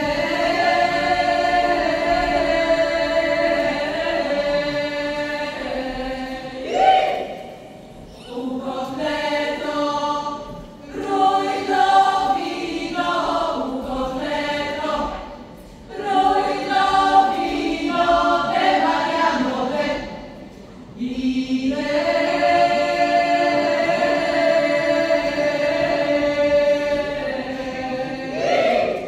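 A women's folk choir singing a Balkan song a cappella, in long held phrases broken by three short pauses.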